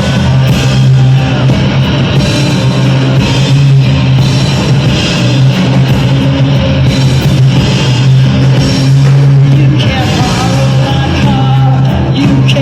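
Live rock band playing loud, a heavy, steady bass line under electric guitar and drums.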